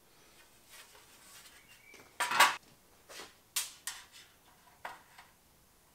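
Metal fan shroud plate and an electric radiator fan being handled and set down on a workbench: a loud clatter a little over two seconds in, then several lighter knocks.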